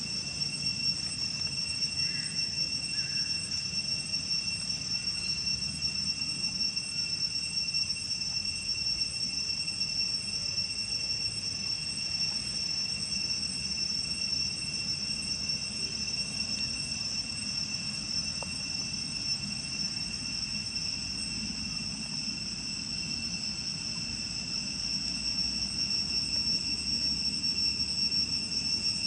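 Insects buzzing steadily in high, unbroken tones at several pitches at once, over a low steady rumble.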